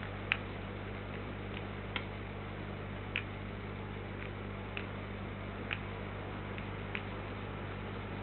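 Sharp, faint ticks at irregular intervals, roughly one a second, over a steady low electrical hum.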